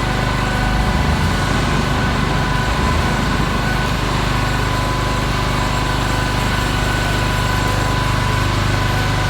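Small engine of the concrete-placing equipment running steadily at a constant speed, with a faint steady whine above it.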